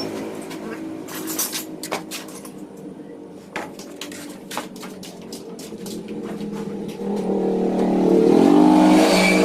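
A motor vehicle engine runs steadily and then revs up, louder and rising in pitch for the last couple of seconds. Sharp clicks come through in the quieter middle.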